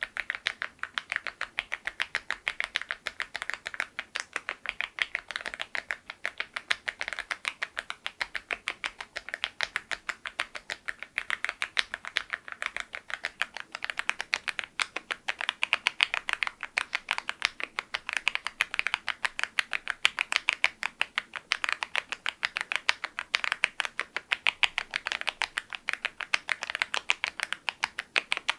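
Continuous typing on a mechanical keyboard fitted with KeyTok very-low-profile ('Berry' profile) Godzilla keycaps on LEOBOG Graywood switches. The keystrokes come as a fast, even stream of sharp clacks, several a second, without pause.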